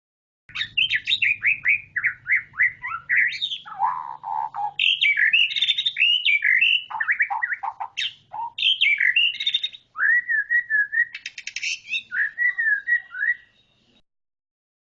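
White-rumped shama (murai batu) singing a rapid, varied song of whistled phrases, trills and chatters. It starts about half a second in and stops about a second before the end, with a faint low hum under the first half.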